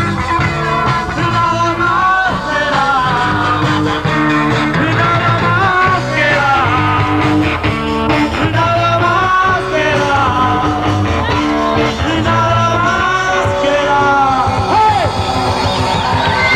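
Live rock band playing an instrumental passage: an electric guitar lead with bent, gliding notes over bass and drums.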